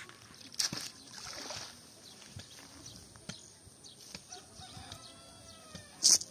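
Water splashing and dripping as a wet cast net is lifted out of a pond, with birds calling faintly in the background. A short, sharp noise comes near the end and is the loudest thing heard.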